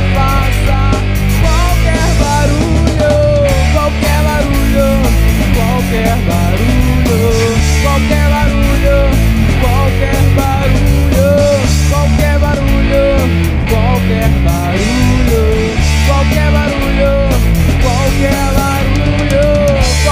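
Rock band playing a demo recording: electric guitars, bass and drums, with a lead melody line that bends up and down in pitch.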